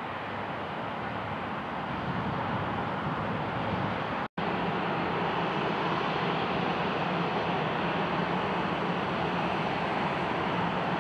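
Steady rushing roar of jet airliner engines at taxi power, with the sound cut off for a split second about four seconds in.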